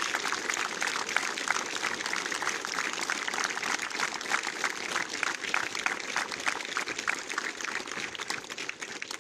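A parade of army cadets clapping in a round of applause, a dense patter of many hands that thins out and fades near the end.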